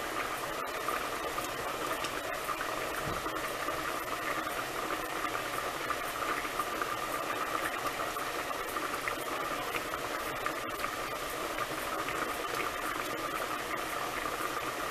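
A pot of ham hocks in broth at a steady rolling boil, bubbling continuously under a lid propped ajar.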